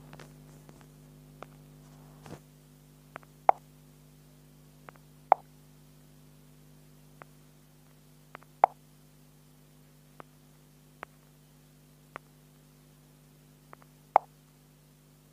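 Short sharp clicks and taps from a phone's touchscreen being operated, a few seconds apart, about four loud ones with fainter ticks between, over a steady low hum.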